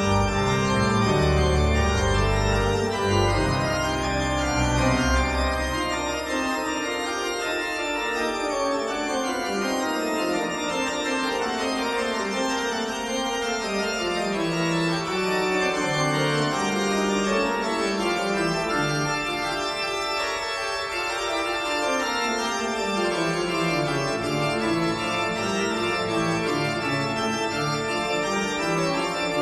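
Background instrumental music of sustained keyboard chords; a strong low bass part drops out about six seconds in.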